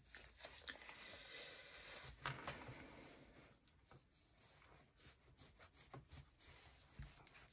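Faint rubbing and rustling of a cloth pressed and wiped over a paper-and-cardstock journal card, with a few soft ticks.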